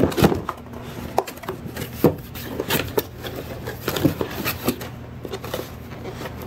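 Cardboard boxes and packaging being rummaged through and opened by hand: scattered knocks, taps and scrapes, over a steady low hum.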